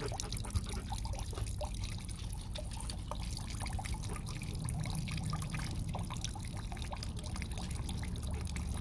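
Water running into a plastic dog water bowl, bubbling and splashing steadily with a fine patter of drips.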